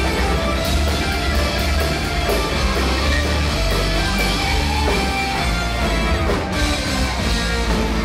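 Live rock band playing: electric guitars, a keytar and a drum kit, with a strong, steady bass.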